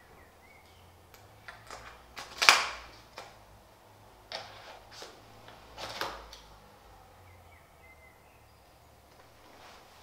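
Sharp clicks and knocks as a large rear wheel's push-pin quick-release axle is worked into its mounting bracket on an aluminium shower/commode chair frame. The loudest knock comes about two and a half seconds in, and a few more follow between four and six seconds.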